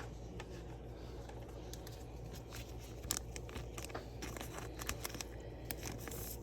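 Faint handling noises of trading cards and plastic card sleeves: scattered soft clicks and crinkles over a low steady hum.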